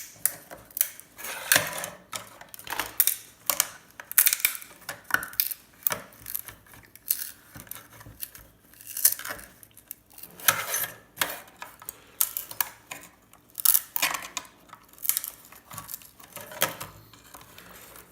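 Irregular clicks and scrapes of a tool prying an IC chip off a circuit board, in uneven bursts as the chip works loose bit by bit.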